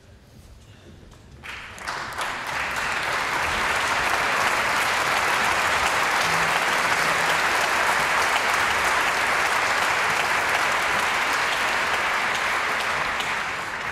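A large concert hall audience applauding. The clapping starts about a second and a half in, quickly swells to a steady, dense applause, and begins to fade near the end.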